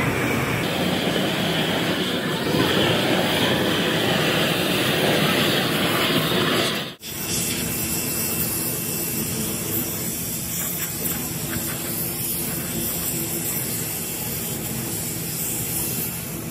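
A torch burner's open flame running loud and steady as it is played over sand casting moulds. After a cut about 7 s in, a slightly quieter steady hiss.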